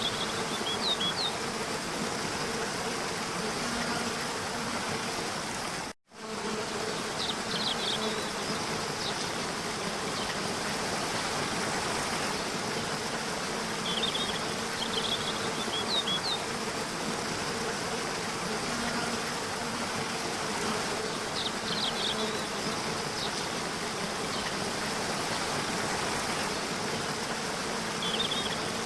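Waterfall rushing steadily under a faint hum, with short groups of high bird chirps repeating about every seven seconds, the mark of a looped track. The sound drops out briefly about six seconds in.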